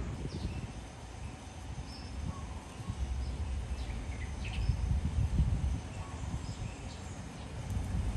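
Outdoor ambience: an uneven low rumble with a few short, high bird chirps scattered through it.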